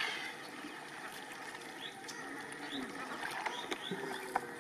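Water dripping and splashing from an orange plastic bucket lifted out of a shallow flooded rice field, with scattered short bird chirps.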